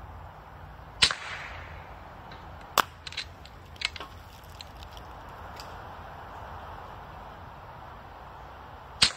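Regulated AEA .25 Challenger bullpup PCP air rifle firing twice, about eight seconds apart, each shot a sharp crack with a short fading echo. A few smaller clicks come in between.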